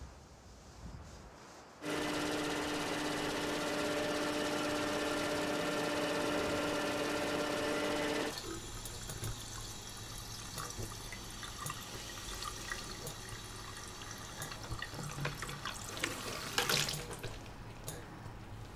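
Water running from a washbasin tap, first as a steady rush through the pipes with a whine that cuts off suddenly about eight seconds in, then as a thin trickle splashing into the basin with small clicks and drips.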